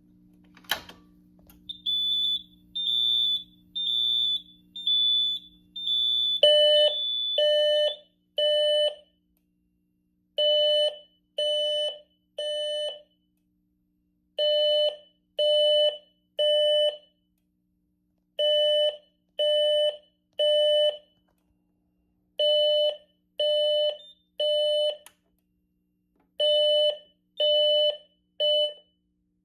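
Fire alarm notification appliances sounding the Temporal-3 evacuation pattern: three pulses, a pause, then three more, about every four seconds. Before that, about a second in, there is a click, then a single high beep repeating about once a second for several seconds.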